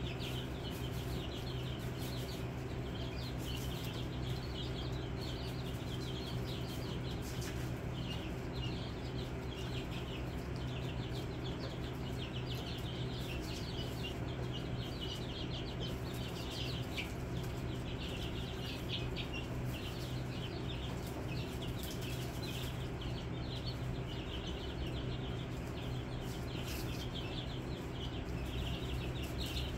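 A brood of young chicks peeping, many short high cheeps overlapping without a break, over a steady low hum.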